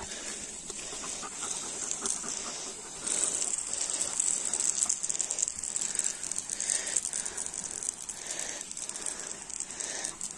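Irrigation sprinkler spray hissing and pattering on tall grass, growing louder about three seconds in.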